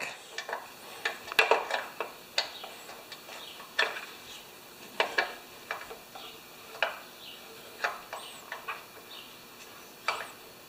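Scattered metallic clicks and taps of a hand tool on the carburetor mounting nuts as the carburetor is bolted back onto a Honda lawnmower engine, roughly one click a second at irregular intervals.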